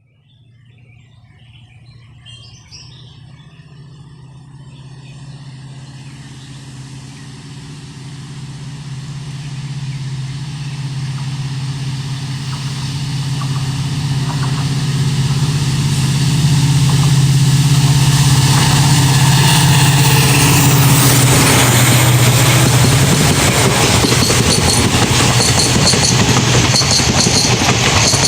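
A WDG4D diesel locomotive hauling an express train approaches, its engine's steady low drone growing louder over about fifteen seconds. From about two-thirds of the way in, the train is close and passing: loud rushing and rattling noise from the train.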